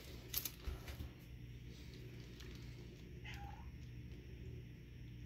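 Light knocks and handling sounds as a cream puff is picked up off a parchment-lined baking sheet, then a faint steady hum with one short squeak that falls in pitch about three seconds in.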